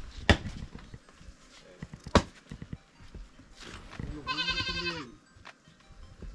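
A goat bleats once, a wavering call of about a second, roughly four seconds in. Before it come two sharp knocks, the loudest sounds, about two seconds apart.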